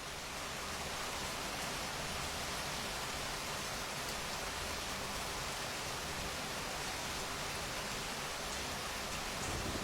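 Steady rain falling, an even, dense hiss of drops with no breaks.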